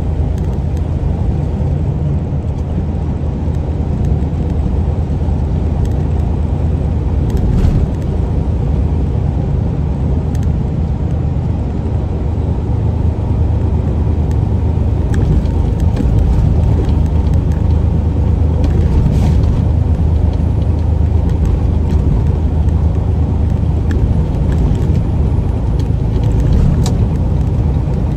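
Semi truck's diesel engine and road noise heard from inside the cab while cruising: a steady low rumble that grows slightly louder about halfway through.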